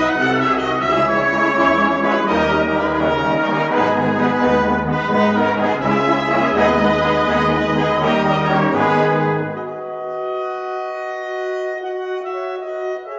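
Brass band playing a slow hymn tune in full chords, with the bass notes stepping beneath held harmonies. About nine and a half seconds in, the low parts drop out and quieter sustained high notes carry on.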